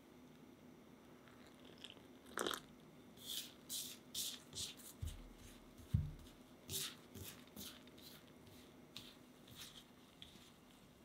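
Gloved hands squeezing and rubbing cold butter into flour and cocoa powder in a glass bowl: a run of soft, crunchy squishes and rustles a few tenths of a second apart. There is a dull knock about six seconds in.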